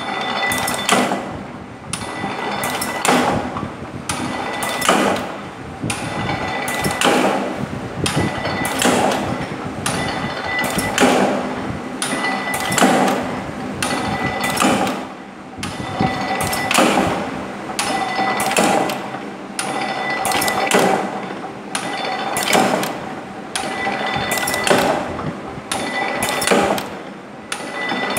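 Mechanical power press with a pneumatic cylinder trip, working through repeated strokes: a clank with clicks about every two seconds, over a steady hum.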